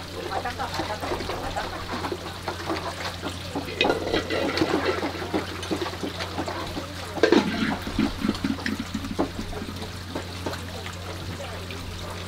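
Hands rinsing cut pieces of raw seafood in a plastic bowl of water: irregular splashing and sloshing, with a louder burst about seven seconds in, over a steady low hum.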